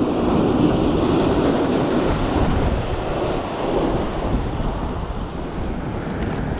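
Surf breaking and washing over shoreline rocks, a continuous loud rush of white water, with wind buffeting the microphone. Slightly louder in the first few seconds, then easing a little.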